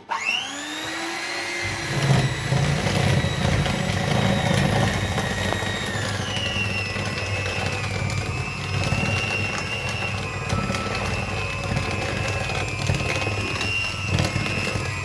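Handheld electric kitchen mixer switching on with a quickly rising whine, then running steadily as its beaters churn through a stiff flour-and-butter cake mixture. Its whine drops in pitch about six seconds in.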